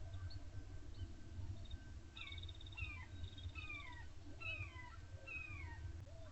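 A bird calling: a quick trill, then a run of about six slurred notes, each falling in pitch, packed into a few seconds.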